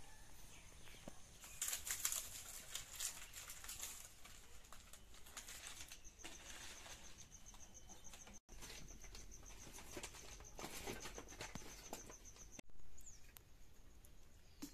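Dry palm fronds rustling and crackling as they are carried and handled, with scattered sharp clicks and light footsteps. A faint steady high-pitched tone runs through the middle part.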